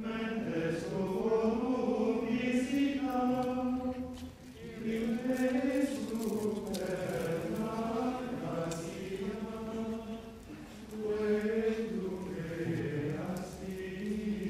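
Men's voices chanting together, a slow sung plainchant in long phrases with brief pauses for breath about four seconds in and again near eleven seconds.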